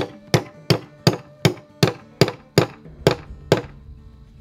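Hammer tapping a rod down into a pre-drilled hole in the plywood top of a wooden armadillo box trap: about ten quick, even taps, roughly three a second, stopping a little before the end. The rod is being driven until it is fully seated.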